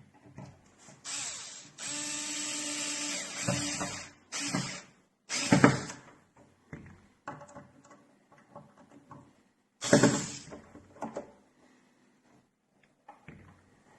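Xiaomi Mijia electric screwdriver running in several short bursts as it drives screws: the longest lasts about two seconds, and shorter ones come around the fourth, fifth, sixth and tenth seconds. Small knocks and clicks fall between the bursts.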